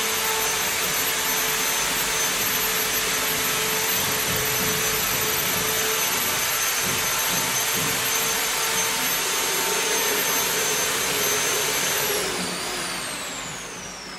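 A fan-driven electric motor, vacuum-cleaner-like, running steadily with a rush of air and a high whine, then switched off about twelve seconds in, its whine falling as it spins down.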